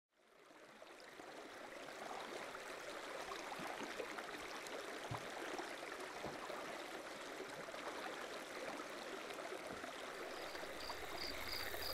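Steady rush of a flowing stream that fades in over the first second or two. Near the end a high chirping joins it in quick pulses, about five a second.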